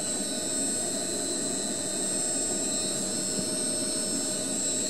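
Rockwell/Delta 17-inch drill press with its three-phase motor fed from a variable frequency drive, running steadily and smoothly, with a steady high-pitched whine over the motor hum.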